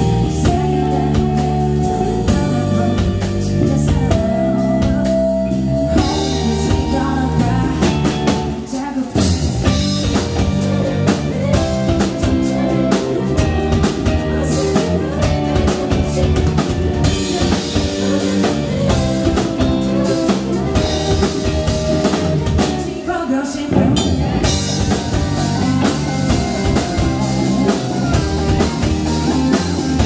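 Live band playing a song, with drum kit, guitar and singing.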